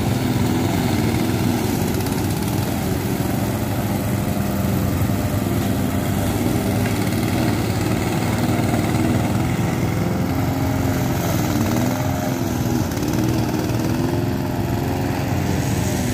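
Walk-behind rotary lawn mower's small engine running continuously while pushed through long, dense grass, its pitch wavering up and down as it cuts.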